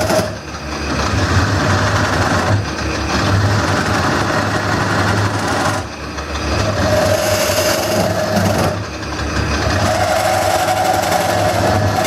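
Wood lathe running while a gouge cuts into a spinning wooden bowl blank, a steady motor hum under a rough cutting noise that drops off briefly about four times as the tool comes off the wood. In the second half a steady whine comes and goes.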